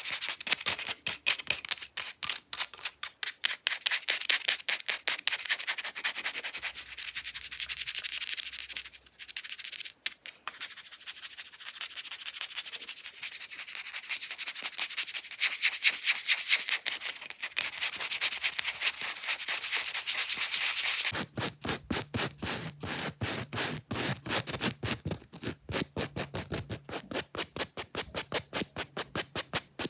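Fake nails scratching fast across an object's surface in rapid strokes. About two-thirds of the way through, the scratching changes to sharper, evenly spaced strokes, as on a different surface.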